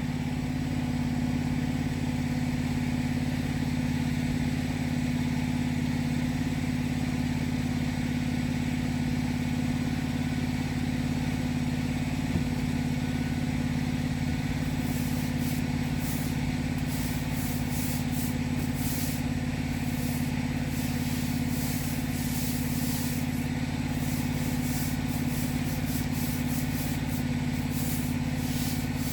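A cleaning machine's engine running steadily at one speed. From about halfway on, repeated short hisses of spraying, as neat chemical is put onto black spot.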